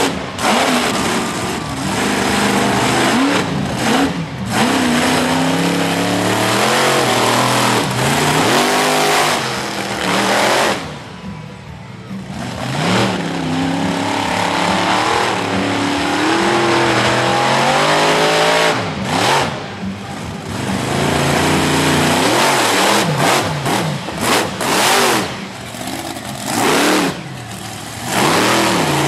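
Monster truck big-block V8 engines revving hard, the pitch climbing and falling with each stab of throttle as the trucks jump and spin. The engine noise dips briefly about eleven seconds in, and near the end comes in short, choppy throttle blips.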